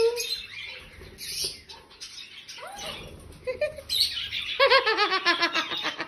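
Sun conure calling: a few short rising chirps, then, about two-thirds in, a fast run of repeated chattering notes.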